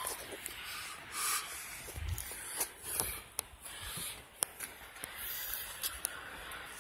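Rustling and crunching of someone moving on foot over rocky ground covered in dry leaves, with handling noise, many sharp clicks and a few dull thumps, the clearest about two seconds in.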